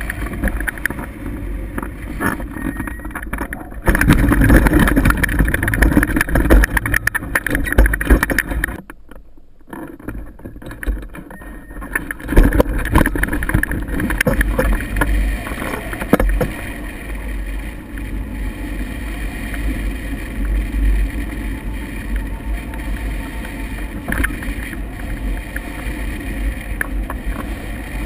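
Wind buffeting the microphone of a camera mounted on a hang glider's wing, with rumble and scattered knocks, as the glider is towed along a grass strip and climbs into the air. It is loudest for a few seconds after the start, drops sharply for about a second, and then settles to a steadier rush of air.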